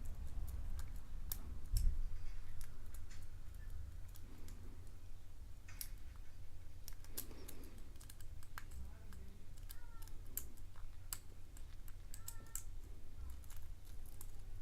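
Lock pick probing the pins of a padlock under tension: irregular light metallic clicks and scrapes as the pins are pushed up and down the stack.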